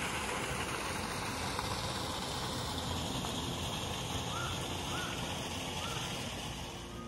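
Water pouring from an outlet in a stone river wall and splashing into the river below, a steady even rush that eases slightly near the end.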